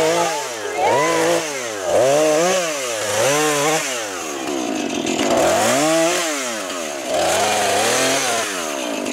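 Chainsaw engine revving up and down over and over, its pitch rising and falling roughly once a second, with a short lull a little before the middle.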